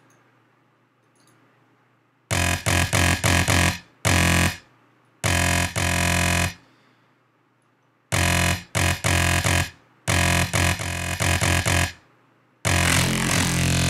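Deathstep growl bass patch on a Native Instruments Massive software synthesizer, run through sine shaper and parabolic shaper inserts. It plays a series of loud, gritty, distorted low bass notes after about two seconds of near quiet. Some notes are chopped into quick stutters and others are held, ending on a long sustained note. The sound is described as "pretty nasty."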